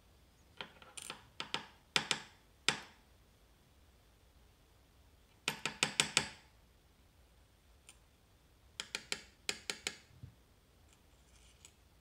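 Small pins and springs from a disassembled Assa Twin V-10 lock cylinder clicking as they are handled and tipped out onto a metal pinning tray. The clicks come in three short bursts: about a second in, near the middle, and towards the end.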